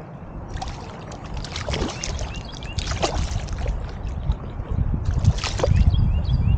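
River water splashing and sloshing in several short bursts, over a low rumble that grows louder toward the end.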